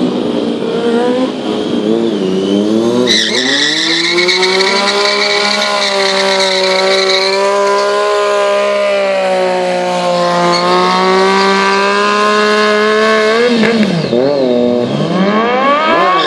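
Sport motorcycle engine held at steady revs during a stunt, with its rear tyre squealing on the asphalt for several seconds from about three seconds in. Near the end the engine is revved up and down in quick blips.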